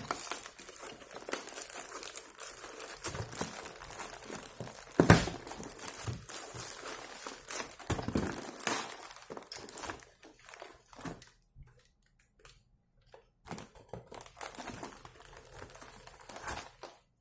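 Plastic packaging being handled and unwrapped, crinkling and rustling, with one sharp knock about five seconds in; the crinkling thins out to scattered quieter crackles in the last several seconds.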